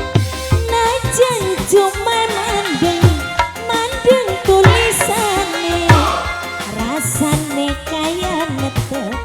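Live dangdut band playing an instrumental passage: hand drums keep the beat under a melody line that bends and wavers in pitch.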